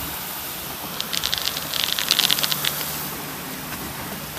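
Hurricane wind and rain making a steady rushing hiss, with a rapid crackling rattle for about a second and a half starting a second in.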